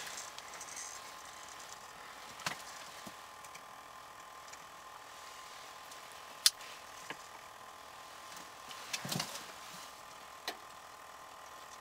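A few scattered sharp clicks and knocks of fishing rods and tackle being handled, the loudest about six and a half seconds in and a short cluster near nine seconds, over a faint steady hum.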